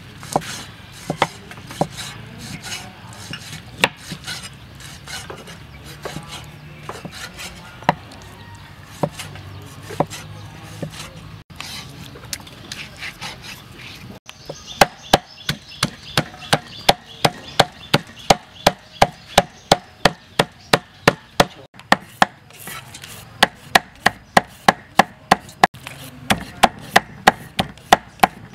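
A cleaver cutting raw pork on a wooden chopping board: scattered knocks at first, then from about halfway through a steady run of sharp chops, about three a second, as the pork is minced.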